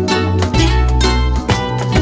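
Background music with plucked strings over a steady bass line, notes struck at an even pulse.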